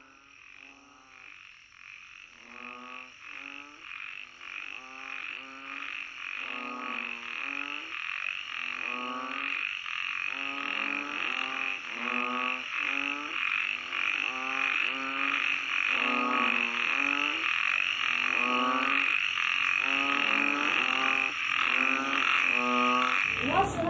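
Frogs croaking in a chorus, rhythmic pulsing calls over a steady high-pitched drone, fading in slowly and growing louder.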